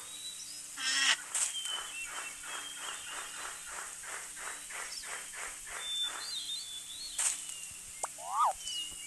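An animal call made of short, even pulses, about three a second for some six seconds, with a few brief high bird-like chirps and whistles over it.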